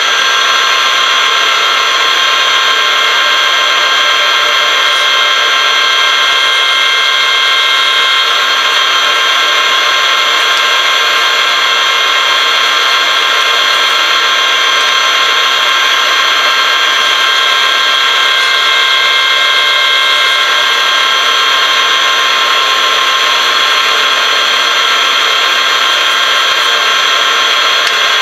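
Metal lathe running at a steady spindle speed, a constant whine of several steady pitches from its motor and gearing, with the trepanning tool set up to cut into a spinning block of acetal.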